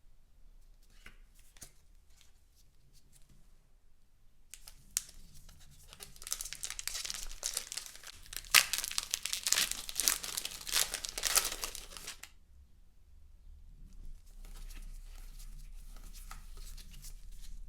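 Packaging of a Pokémon trading card collection box being torn open and crinkled. A few light clicks come first, then about eight seconds of dense crackling and tearing, and softer rustling near the end.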